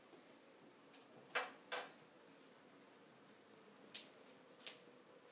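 Quiet classroom room tone with a faint steady hum, broken by two short scraping noises in quick succession about a second and a half in and a couple of faint ticks near the end.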